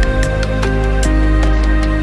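Background music: held synth chords over a deep bass that drops in just before, with light ticking percussion.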